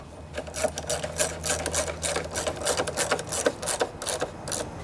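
Ratchet wrench clicking in quick, irregular runs as a bolt holding a lawnmower handle is tightened.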